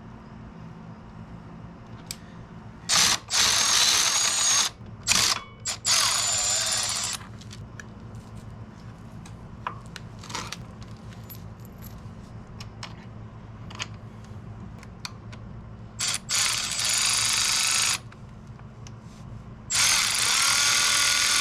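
Cordless power tool running bolts in short bursts, five runs of a second or two each with a high whine.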